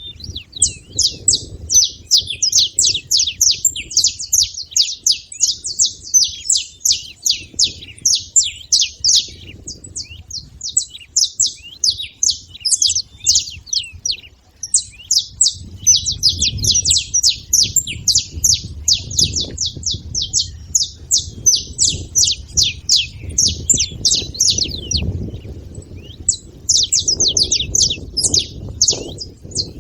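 Saffron finches chirping in rapid, dense runs of short high notes, several a second, with brief gaps about ten and twenty-six seconds in. A fainter low rumble runs underneath.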